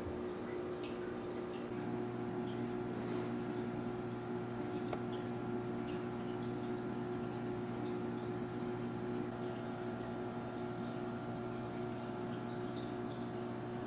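Steady electrical hum of several held tones over a faint hiss, with a lower drone setting in about two seconds in and a few faint ticks.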